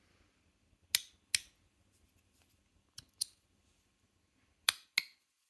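Aluminium magnetic fidget slider (GD EDC Samsara 2.0) being slid back and forth, its magnets snapping the slide into place: three pairs of sharp clicks, the two in each pair a quarter to half a second apart.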